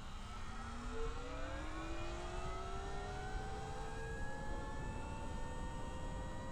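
Motorbike's motor accelerating at full power in sport mode: a whine rising steadily in pitch as it speeds up, over a steady low wind rumble.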